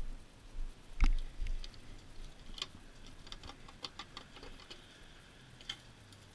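Small knocks and clicks from opening and handling a go-kart's fuel cap to check the gas level: one louder knock about a second in, then scattered light ticks.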